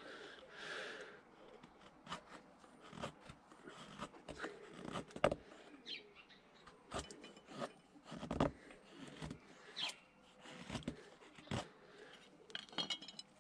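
A homemade knife, its blade made from an old saw blade, shaving curls off a wooden stick: a dozen or so separate scraping cuts, about one a second, as the new edge is tested.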